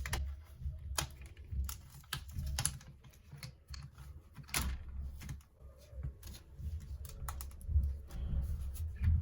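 Irregular clicks and taps of hard plastic as a laptop screen assembly is handled and its front bezel pried at, with a low rumble of handling on the bench.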